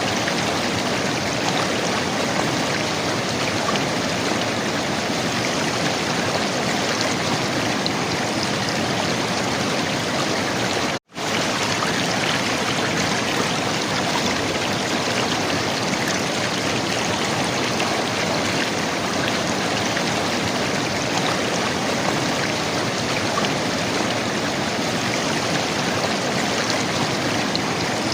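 River water flowing and gurgling in a steady, dense rush, with one brief cut to silence about eleven seconds in.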